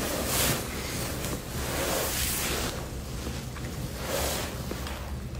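Handling noise of a phone rubbing against a nylon puffer jacket: soft rustling swells about every two seconds over a steady low hum.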